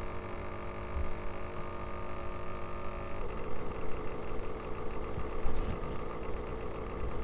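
A steady machine hum made of several even tones, which changes pitch and turns rougher about three seconds in.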